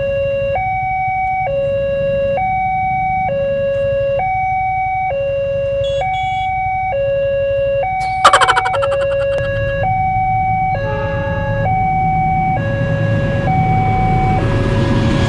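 Railway level-crossing warning alarm sounding a two-tone electronic signal that switches between a low and a higher note, each held just under a second, over the rumble of waiting traffic. About eight seconds in, a sudden loud rasping burst cuts over it and fades within about a second.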